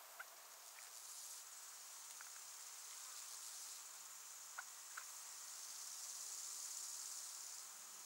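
Faint insect chirring, a steady high-pitched hum that swells and fades, with a few short faint chirps, two of them close together about halfway through.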